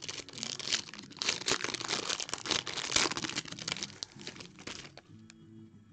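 A clear plastic trading-card pack wrapper crinkling and tearing as it is pulled open by hand. It dies down about five seconds in, leaving a few faint clicks.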